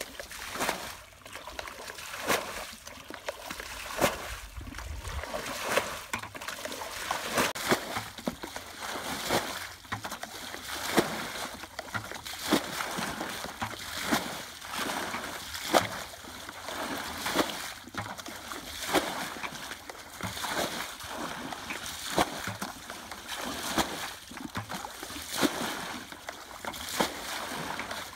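Buckets of muddy water being bailed out of a shallow ditch by hand and flung out: a repeated splash and slosh about every second and a half.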